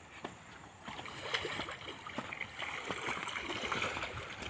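Footsteps crunching and clacking on loose riverbed stones, a quick run of small knocks starting about a second in, over a steady rushing hiss.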